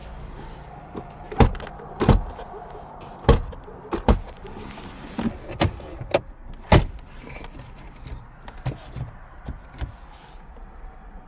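Irregular sharp knocks and clacks, about eight loud ones in the first seven seconds and lighter clicks after, like things being handled around a car body and interior.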